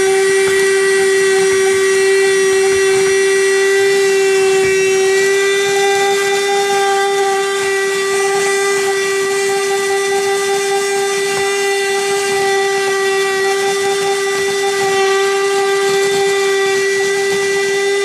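Cordless bagless handheld vacuum cleaner running at full suction: one steady high motor whine over a rush of air as its nozzle picks up dirt and crumbs from a carpeted car floor mat.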